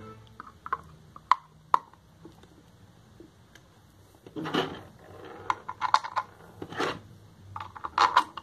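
Terminal-box cover of a Pedrollo PKm 60 water pump being fitted onto the motor housing by hand: a few sharp clicks in the first two seconds, then scrapes and a string of clicks and knocks as it is pressed into place.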